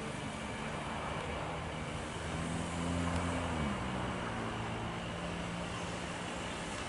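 Airbus A320 jet airliner taxiing: a steady hiss and rumble of jet engines, with a low engine hum that grows louder and then drops in pitch about three and a half seconds in.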